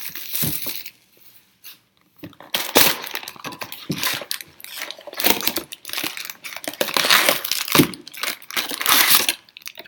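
Plastic wrapping on a trading-card box crinkling and tearing as the box is pulled open by hand, with cardboard rustling. A brief burst at the start, a short pause, then rapid crinkling and tearing for most of the rest.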